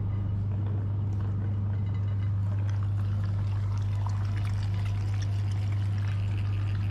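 Electric meat grinder running with a steady low hum, with a busy crackle over it as jelly is forced through.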